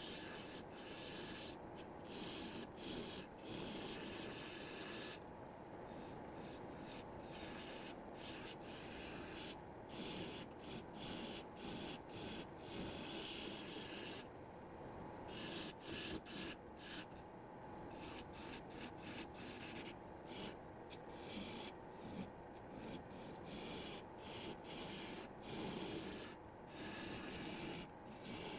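Turning tool cutting a spinning Australian red cedar blank on a wood lathe: a steady scraping hiss with many brief breaks.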